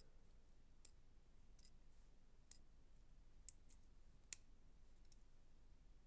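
Faint small clicks of a Victorinox Jetsetter @ Work Alox pocket knife's pop-out USB stick and its slide switch being worked by hand, about six clicks under a second apart, the sharpest about four seconds in.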